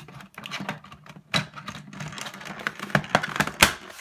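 Irregular plastic clicks and knocks as the clear plastic case of a Cube 3 3D printer filament cartridge is lined up and pressed shut by hand, the sharpest clicks in the second half.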